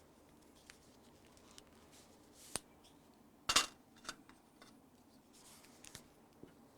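Quiet handling noises: a sharp click about two and a half seconds in, then a brief louder scrape a second later and a smaller one just after, over faint room tone.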